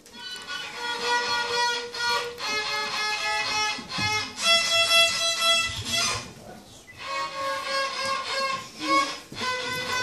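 A small child's fiddle bowing a simple beginner tune in plain held notes, with a short break about six seconds in.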